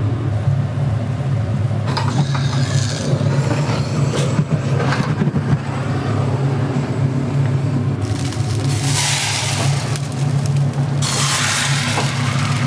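Pork sizzling on a restaurant grill over a steady low hum, with some scraping in the first half. The sizzle turns loud about eight seconds in, dips briefly near eleven seconds, and comes back.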